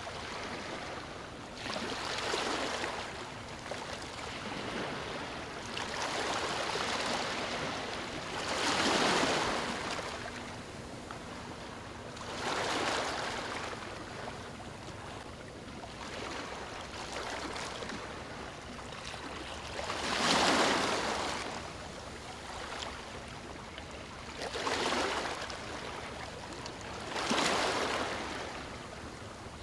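Ocean waves breaking on a beach, each one swelling into a hissing crash and then washing back. Breakers come every few seconds, and the biggest land about nine, twenty and twenty-seven seconds in.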